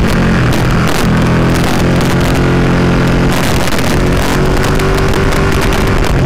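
Motorcycle engine running under way, its pitch shifting as the bike rides on, with wind rushing past.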